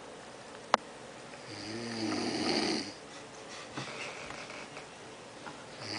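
A sleeping man snoring: one long, loud snore begins about one and a half seconds in and lasts over a second, and the next begins near the end. A single sharp click comes just under a second in.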